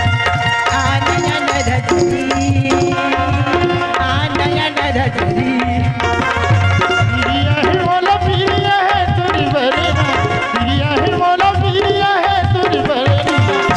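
Live Chhattisgarhi folk dance music: hand drums keep a quick, steady beat under a held note and a wavering melody line.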